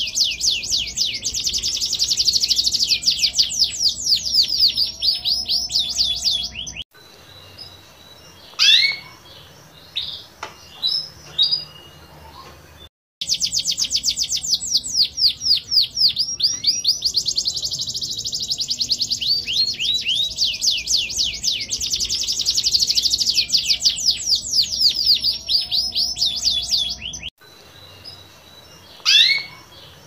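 Domestic canary singing two long stretches of fast trilled song, runs of rapidly repeated high notes, each lasting several seconds. In the quieter gaps between there are a few short separate chirps. The song starts and stops abruptly, as if spliced.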